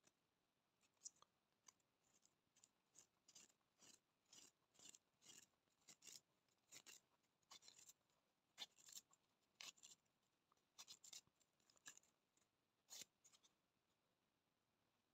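Nylon netting twine rubbing and scraping over a flat net-making gauge as the loops are worked by hand: faint short scraping strokes, about two a second, that stop near the end.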